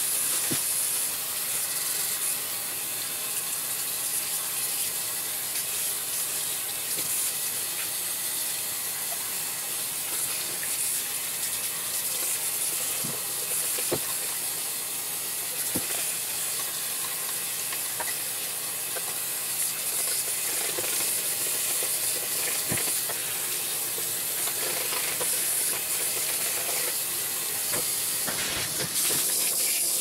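Tap water running steadily into a bathroom sink as a paintbrush is rinsed and scrubbed under the stream, a constant hiss with a few light knocks of the brush against the basin.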